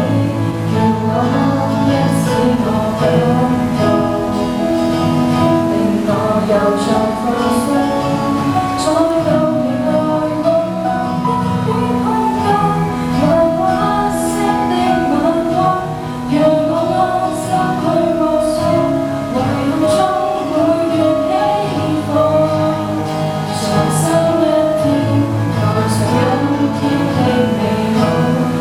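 Live female singing with guitar accompaniment.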